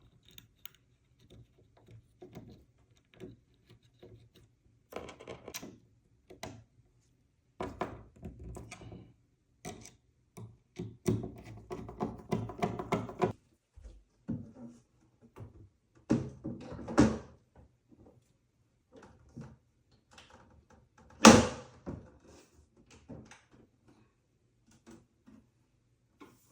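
Kitchen cabinet door and its hinge being handled during a hinge swap: scattered clicks and knocks of hinge and wood, with one loud thunk about 21 seconds in.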